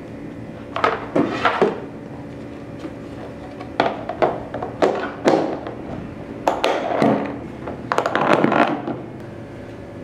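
Plastic lunch box handled on a wooden table: short runs of knocks and clicks as the clear Ecentio lid is set on the box and its latch clips are snapped shut.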